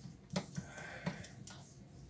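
A few light clicks and knocks of parts or tools being handled, three in all, with a brief scrape between the first two.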